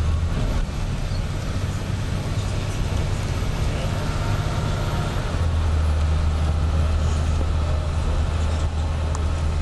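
Tour bus engine and road noise heard from inside the cabin while driving: a steady low drone that shifts lower and stronger about five seconds in.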